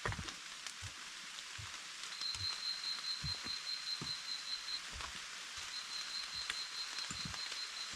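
Footsteps on a forest trail at walking pace, soft thuds under a steady hiss. A high, even trill sounds twice, each run lasting about three seconds.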